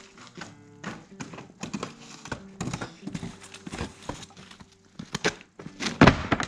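Scuffing steps and wooden knocks as a wooden pallet is carried across a muddy yard, ending about six seconds in with a loud wooden thud as it is laid down on a stack of pallets.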